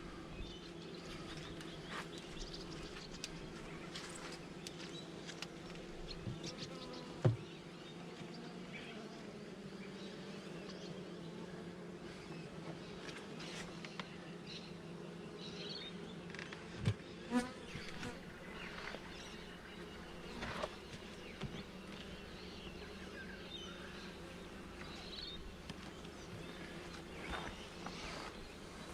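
Honeybees buzzing in a steady hum around an open, crowded hive, broken by a few short knocks, the loudest about a third of the way in and again a little past halfway.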